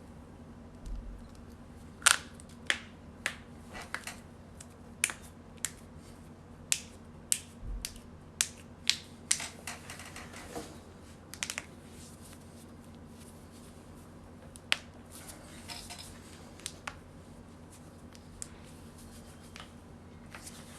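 Joints cracking: about twenty sharp pops, most of them close together in the first half and a few scattered later, the loudest about two seconds in.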